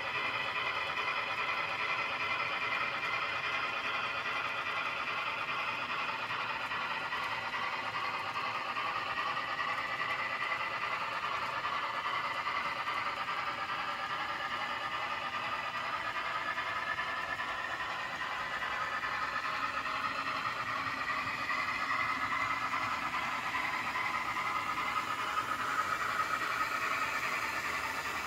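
N scale model trains running on the layout: a steady whir of small locomotive motors and wheels on the track, with several whining tones that slowly rise and fall.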